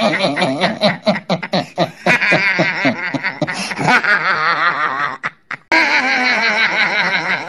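A boy laughing hard in rapid, choppy bursts, with a short break about five seconds in.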